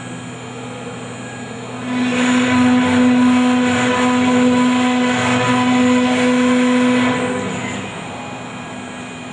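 SH-3636 CNC router spindle running with a steady whine while its V-shaped engraving bit cuts a groove into a wooden board. The cutting noise grows louder about two seconds in and eases again at about seven seconds.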